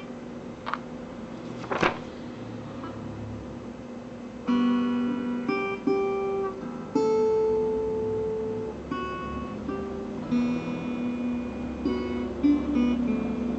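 Steel-string acoustic guitar played fingerstyle, plucked notes and chords ringing out. The first few seconds are quieter, with two sharp knocks. Fuller picking resumes about four and a half seconds in.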